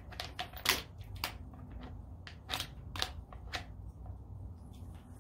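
A run of sharp plastic clicks and knocks, about eight in the first four seconds, then fewer near the end. They come from the side handle of a cordless hammer drill being fitted and clamped on.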